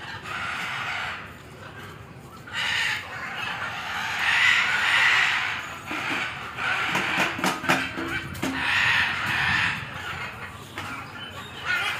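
Fowl clucking, with a cluster of short low calls about six to eight seconds in, over patches of hissy background noise.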